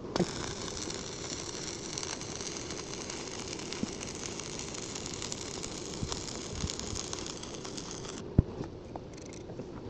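Electric welding arc hissing and crackling for about eight seconds, then cutting off suddenly as the arc is broken. A single sharp knock follows shortly after.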